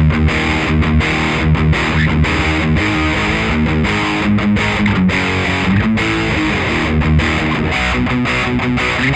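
Electric guitar played through a Marshall The Guv'nor overdrive pedal, giving a gritty overdriven tone as it plays a continuous run of picked notes and chords.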